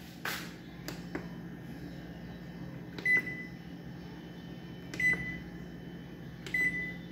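The dispenser control panel of a GE side-by-side refrigerator beeps as its buttons are pressed: three short high beeps a second or two apart, the panel responding and working normally. A steady low hum runs underneath.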